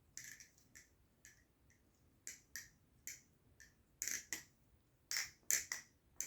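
New Era Abyss balisong being flipped: irregular sharp clicks and clacks as the handles swing around and strike the blade's tang and pins, some in quick pairs.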